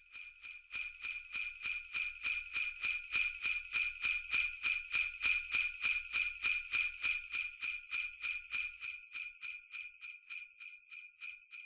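Jingle bells shaken in a steady rhythm, about four shakes a second, growing louder and then slowly fading.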